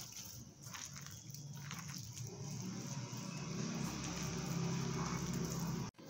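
Soft squishing of a hand mixing wet, mashed potato and flour dough in a steel bowl, with a low steady hum underneath that grows louder in the second half and cuts off suddenly near the end.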